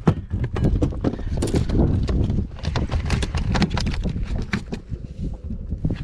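Rapid, irregular clicks and knocks over a low rumble of wind on the microphone, as a small bass is reeled in and brought aboard a bass boat.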